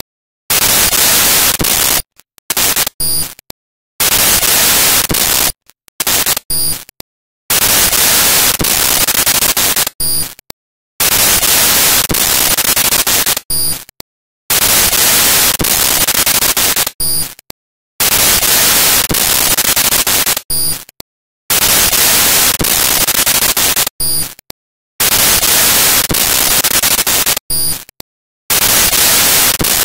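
Loud bursts of electronic static hiss, each about three seconds long, repeating about every three and a half seconds. Each pair of bursts is separated by a brief silence and a short beeping blip.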